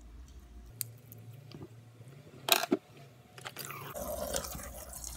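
Sticky, wet squelching of white-glue slime, with borax solution added, being worked by hand in a glass bowl. A sharp louder squish comes about two and a half seconds in, and the squishing grows denser near the end.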